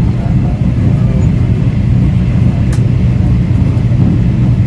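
Standard-gauge electric passenger train running at speed, a steady loud low rumble as heard inside the carriage, with one brief click partway through.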